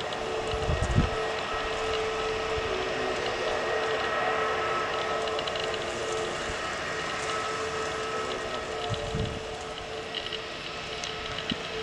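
Airbus A320neo turbofan engines running with a steady, multi-toned whine as the airliner moves slowly along the runway. Two short low rumbles, about a second in and near 9 s, sound like wind on the microphone.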